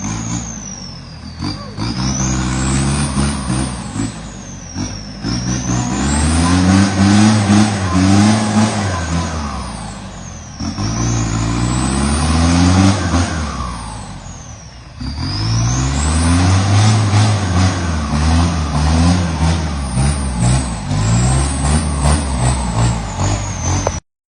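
A truck engine sound revving up and falling back in repeated cycles, with a high whine that dips and climbs along with it. It cuts off abruptly near the end.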